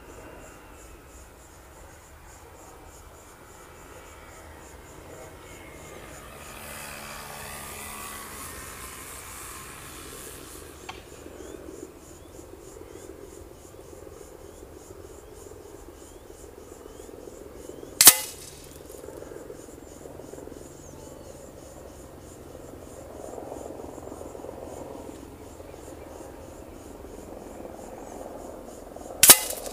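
Two sharp cracks about eleven seconds apart, pellets from a PCP air rifle striking the paper target on its board. Between them wind moves through the grass, with insects chirping faintly.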